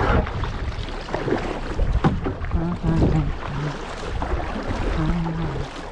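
Kayak paddle strokes splashing in lake water, with wind buffeting the microphone as a low rumble. A few short, low, steady tones come between about two and a half and five and a half seconds in.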